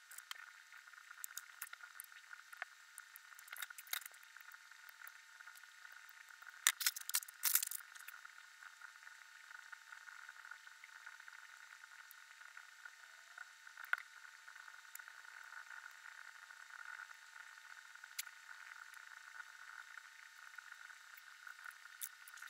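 Small clicks and taps of plastic model-kit parts being handled and worked off the sprue, with a louder cluster of clicks about seven seconds in, over a steady recording hiss.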